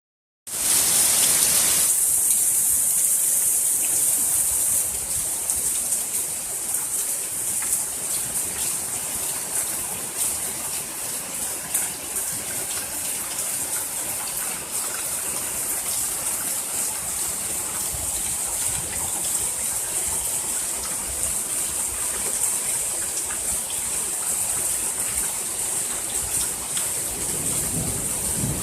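Heavy rain pouring down in a downpour: a loud, steady hiss of water that starts abruptly, after a moment of silence at the start.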